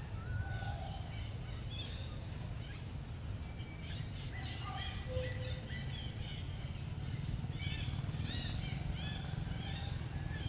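Many short, high chirping calls from animals in the surrounding forest, scattered throughout and coming thickest about three-quarters of the way in, over a steady low rumble.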